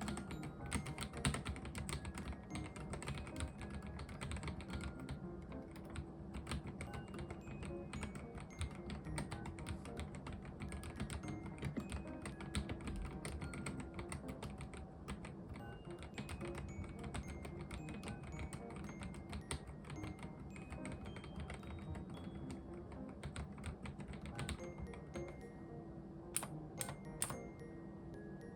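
Mechanical keyboard typed on quickly, a dense stream of key clacks for a typing-sound test, with a few sparser, louder keystrokes near the end. Soft background music runs underneath.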